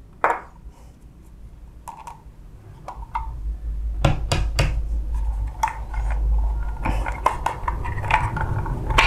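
Small metal and plastic parts of a Toshiba e-Studio 856 copier's waste-toner unit being handled by hand: scattered clicks and light knocks, more frequent and louder from about three seconds in, as a retaining ring is worked off and the lower shaft is drawn out.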